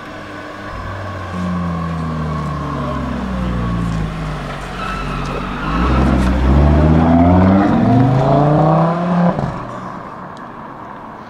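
High-performance car engine revving and accelerating hard, its pitch climbing in several rising sweeps with drops between them as it shifts up through the gears. It is loudest in the second half and falls away sharply about nine seconds in.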